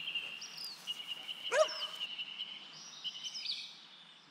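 A dog gives one short, sharp yip about one and a half seconds in. Under it run a steady high-pitched trill and repeated short bird chirps.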